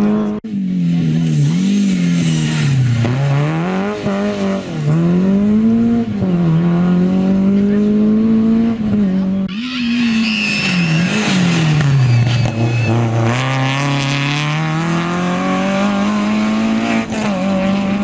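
Rally cars' engines revving hard, the pitch climbing and dropping again and again with gear changes and lifts off the throttle as the cars pass. A high squeal joins in for a few seconds from about ten seconds in.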